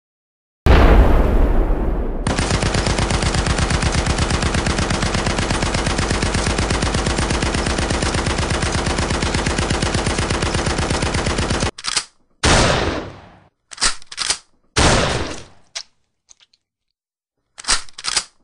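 Dubbed-in gunfire sound effect: a heavy boom about half a second in, then a long stretch of rapid automatic machine-gun fire that cuts off abruptly, followed by several short bursts with dead silence between them.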